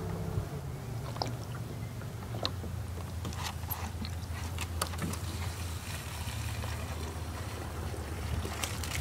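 Plastic water jugs being handled, a few light clicks and knocks of plastic, over a steady low rumble.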